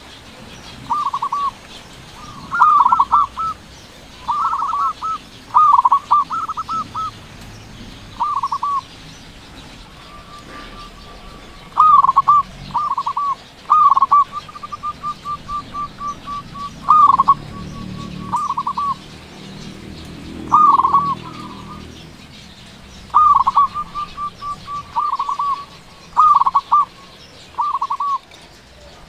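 Local zebra dove (perkutut) cooing: loud, repeated short phrases of clipped, falling coos every second or two. Some phrases trail into a fast rolling run of notes.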